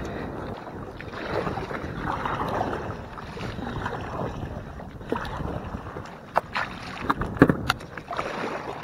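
A kayak paddled on open water: paddle strokes and water sloshing against the hull, with wind on the microphone and a few sharp knocks in the last few seconds.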